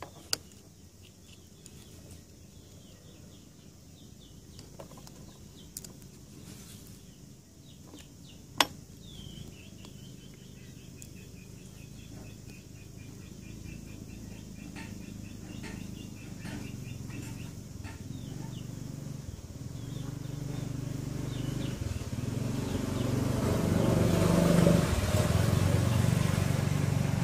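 Quiet background with a single sharp click, then a faint run of bird-like chirps, then a motor vehicle's engine building up and growing louder toward the end.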